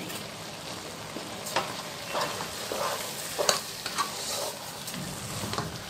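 Grated carrots sizzling in ghee in a pan on a high flame while sugar is stirred in with a spatula, which scrapes and knocks against the pan several times over the steady sizzle.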